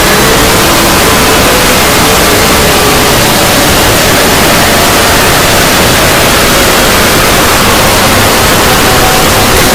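A 'void' sound effect: loud, unbroken static-like noise hiss filling the whole range, with faint wavering tones beneath it.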